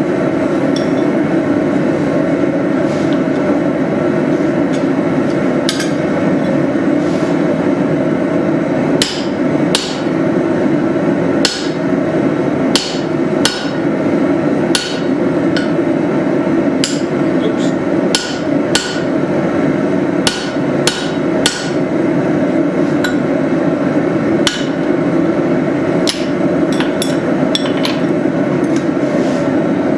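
Hammer blows driving a drift through the eye of a hot leaf-spring steel hatchet blank: sharp metal-on-metal strikes, irregular and in short clusters with pauses between, starting a few seconds in. A steady rushing noise from the forge runs underneath.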